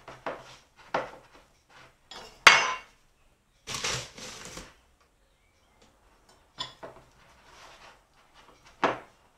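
Metal spoon scraping and clinking against a glass mixing bowl while working a soft, sticky sourdough pre-dough and scraping it off the bowl's sides. The strokes are irregular, with a sharp clink about two and a half seconds in and a short lull in the middle.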